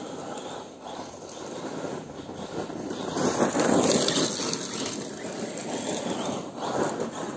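Losi Tenacity truggy, an electric radio-controlled car, driving on loose gravel, its tyres crunching and throwing stones. The sound swells to its loudest about three to four seconds in and peaks again near the end.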